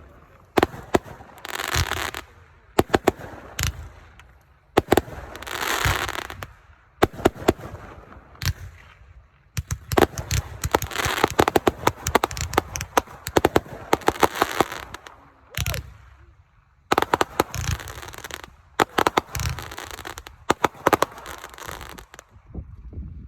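Fireworks going off in volleys: sharp bangs and crackling, with hissing between, and a short pause about sixteen seconds in.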